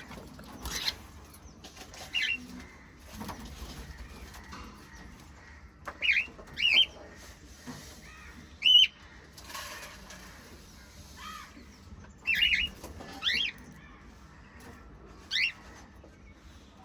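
Small pet parrots giving short, sharp chirps, about eight scattered through the stretch, each bending quickly up and down in pitch, over faint rustling and scratching.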